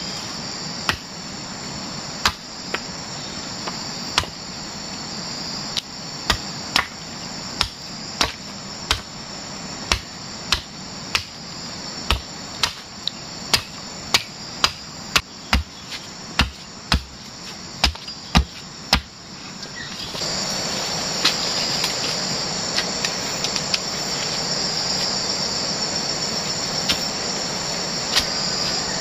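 A steady high insect chorus of jungle cicadas or crickets, with sharp chopping blows of a hand blade striking wood about once a second. The blows stop about two-thirds of the way through; after that the insect drone is louder, with only a few scattered knocks.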